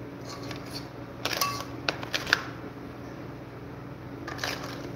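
A spatula clicking and scraping against a pot of cooked crabs: a few light clicks a little over a second in, and a few more near the end, over a steady low hum.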